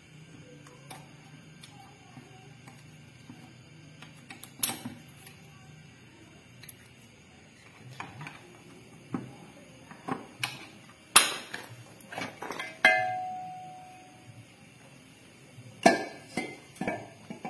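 Metal transmission parts and hand tools clinking and knocking on a workbench as a manual gearbox is taken apart. The knocks are scattered and get busier later on. One strike leaves a metal part ringing for about a second.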